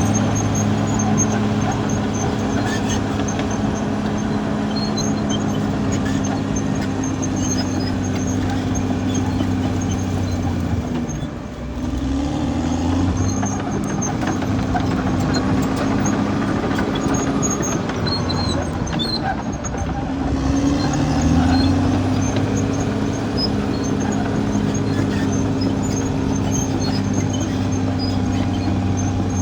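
Caterpillar D6R XL bulldozer's diesel engine running steadily under work. It dips briefly about eleven seconds in, then rises in pitch, and rises again a little after twenty seconds.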